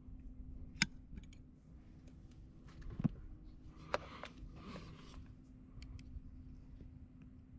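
Small metal hardware being handled with a folding pocket tool, giving a few sharp, scattered clicks: a washer and screw being fitted to a camera mount. A faint steady hum runs underneath.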